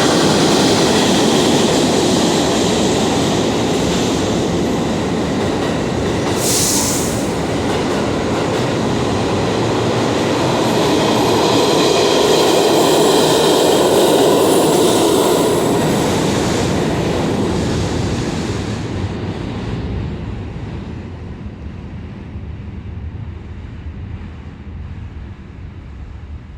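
New York City subway train running through the station: loud, steady rumble and wheel clatter, with a brief high-pitched burst about six and a half seconds in. After about eighteen seconds the noise fades away as the train recedes.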